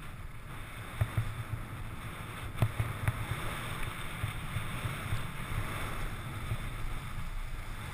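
Alpine skis sliding and carving on packed groomed snow: a steady hissing scrape with wind rumbling on the microphone, and a few sharp knocks in the first few seconds.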